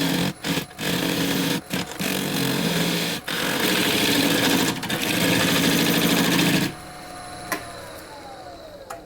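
Woodworking lathe turning a resin-filled driftwood blank while a turning tool cuts it: a loud, rough cutting noise that drops out briefly several times as the tool is lifted off. The cutting stops suddenly a little past halfway, leaving a quieter whine that slides down in pitch as the lathe slows.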